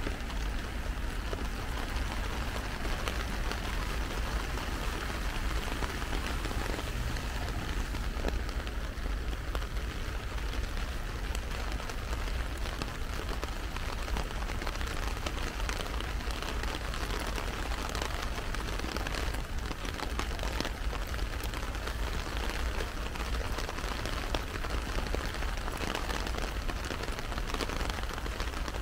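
Heavy rain falling steadily on an umbrella overhead, a dense, even hiss of countless drops.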